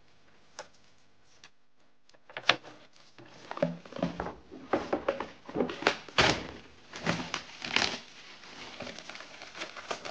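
Quiet room tone for about two seconds, then handling noise from metal posters and their packaging: irregular knocks, clicks and rustles, the loudest thunk a little past the middle.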